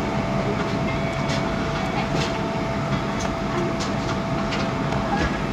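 Airliner cabin noise: a steady rumble and hiss from the engines and air system, with a faint steady whine and a few light ticks.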